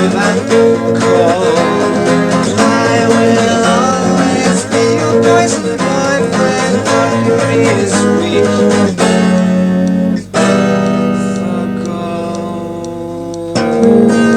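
Unamplified Baldwin 712 twelve-string semi-acoustic guitar being strummed and picked in an instrumental passage, recorded on a cassette tape recorder. About ten seconds in, the playing breaks off briefly. Chords then ring and fade, and the full strumming returns near the end.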